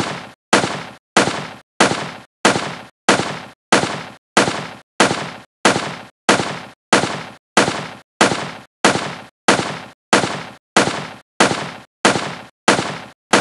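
Gunshot sound effect repeated at a slow, perfectly even rate, about one shot every 0.6 seconds, each shot sharp, fading quickly and cut off short before the next. It is the firing of an animated 1884 Maxim prototype machine gun, cycling one cartridge per shot.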